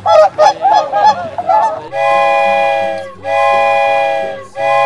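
A goose honking in a quick run of short calls for about two seconds, then three long, steady blasts of a train whistle.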